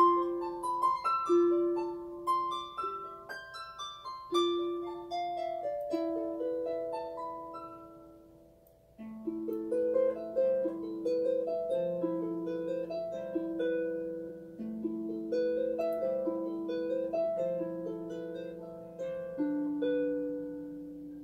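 Lever harp played by hand, a melody of plucked, ringing notes. It dies away to a brief pause about eight seconds in, then starts again with a low bass line under a repeating figure.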